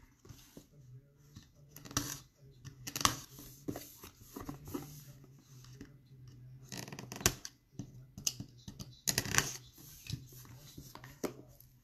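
Knife blade cutting the seal and wrap on a cardboard trading-card box, with the box being handled: intermittent scrapes and taps, the loudest about three, seven and nine seconds in. A faint low hum runs underneath.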